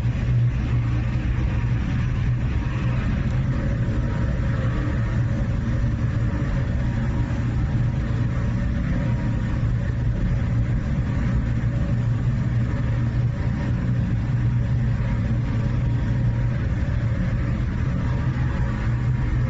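Steady low drone of a copper refining furnace plant running, with a strong low hum and an even rushing noise above it, unchanging throughout.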